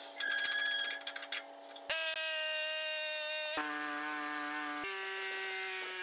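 Portable bandsaw mill running as its band blade cuts through a cedar pole: a steady whining hum, with fast clicking over the first second or so. The hum comes in short pieces, its pitch jumping to a new level every second or two.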